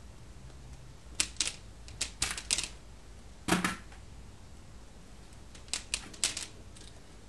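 Sharp clicks and taps in small clusters as hands press and pat a sheet of modeling clay onto a strata-cut clay block on a board.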